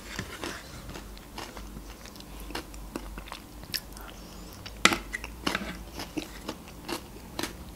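Close-miked mouth sounds of eating a spoonful of yogurt: scattered soft, wet smacks and clicks of lips and tongue, the sharpest about five seconds in.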